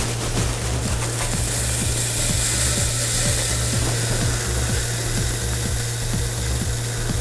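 Dry granular activated carbon pouring from a plastic bag through a plastic funnel into a filter tank: a steady hiss of granules. Background music with a steady beat runs underneath.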